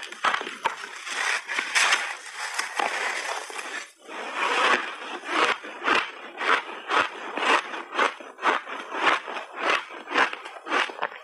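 Crunching of a big bite of refrozen shaved ice, close on lapel microphones, then steady chewing of the icy mouthful at about three crunches a second after a short pause about four seconds in.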